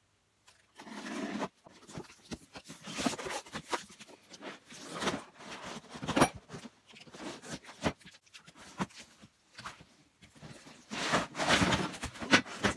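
A cardboard shipping box being torn open by hand and its contents pulled out: irregular tearing, scraping and rustling of cardboard and packing, with a few sharp knocks.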